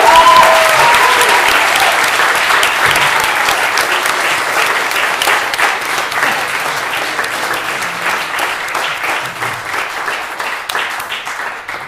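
Audience applauding at the end of a song, loudest at first and slowly dying away toward the end.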